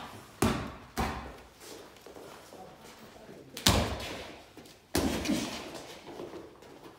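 Boxing gloves thudding as punches land in sparring, about five sharp hits with the loudest about three and a half seconds in, each trailing off in the room's echo.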